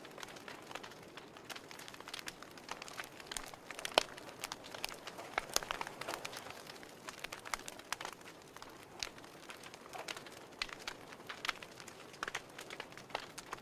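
Wood fire crackling: irregular sharp snaps and pops over a soft steady hiss, with one louder pop about four seconds in.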